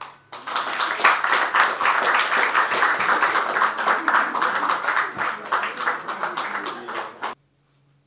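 A small audience clapping. It starts just after the last bell tones have died away and cuts off suddenly near the end.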